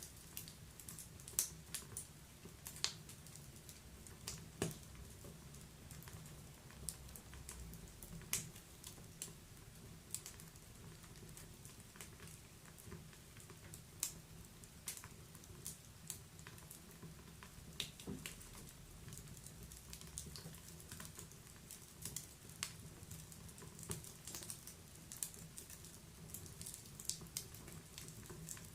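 Wood fire crackling in a fireplace: irregular sharp pops and snaps, some louder than others, over a low steady rumble of the flames.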